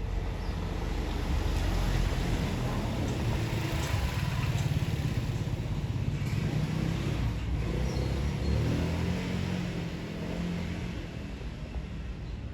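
Street traffic: a motor vehicle's rumble that builds over the first few seconds and fades slowly toward the end.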